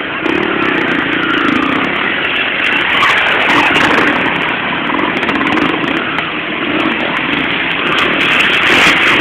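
Enduro dirt-bike engines revving and running as bikes ride past, growing louder near the end as one comes close.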